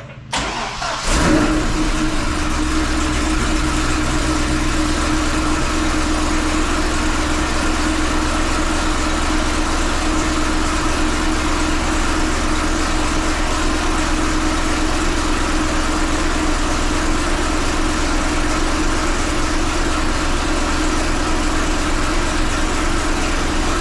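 2005 Chevrolet Corvette's LS2 V8 starting about a second in and then idling steadily, with exhaust leaking at the loose V-band flanges where the aftermarket headers join the pipe.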